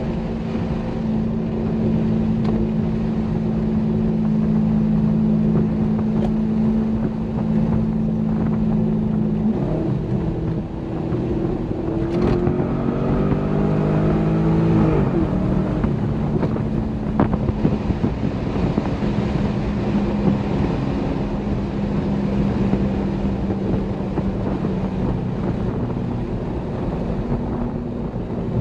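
Chevrolet Corvette C6 Grand Sport's 6.2-litre LS3 V8 pulling at a steady cruise with wind noise, recorded from a camera mounted in the car's trunk. About twelve seconds in, the engine note rises for about three seconds, then drops back suddenly as the revs fall, the pattern of accelerating through a gear and shifting up.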